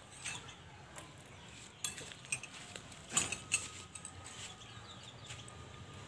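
A few light clicks and knocks of a plastic cup being handled and raised to drink, the loudest about three seconds in.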